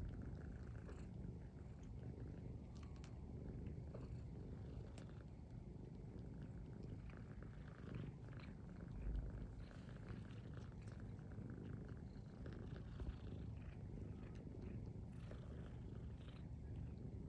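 Domestic cats purring steadily, a low, fast rumble, while one suckles from the other and is licked, with faint soft clicks over it.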